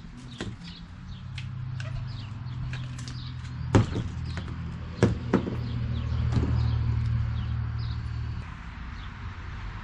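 Sharp clicks and knocks of bike parts and tools being handled during BMX assembly, a few seconds apart, over a steady low hum that stops near the end.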